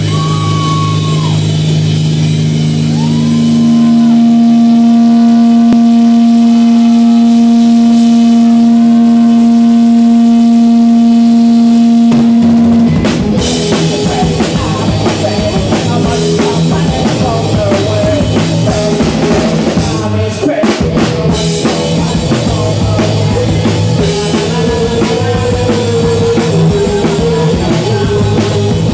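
Live rock band playing loud: a long held, distorted electric guitar note rings for about thirteen seconds, then drums and the full band come in with a driving beat.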